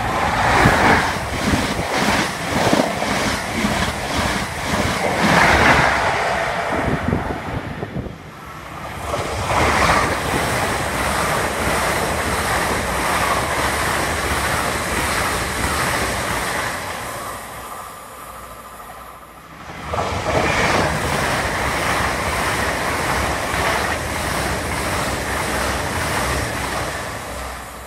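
Express passenger trains passing through at speed, the first an HST: a loud rush of wheels on rail and air, with a rhythmic clatter in the first few seconds. The sound drops away about 8 s in and again about 18 s in, each time swelling back as more of the train or the next one comes through.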